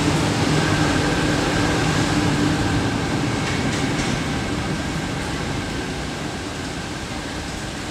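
Subway train running past a station platform: a steady rumble and hiss that slowly fades as the train pulls away.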